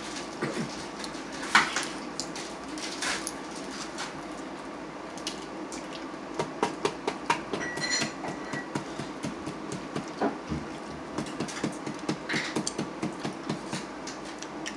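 Steamed blue crab shells being cracked and picked apart by hand: a run of small cracks and clicks, busiest in the middle, over a low steady hum.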